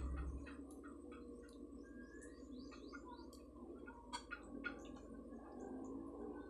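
Faint chirping of small birds, with short rising and falling chirps scattered throughout. A few sharp clicks come a little after four seconds in as a plastic serving spoon knocks against a plastic bowl.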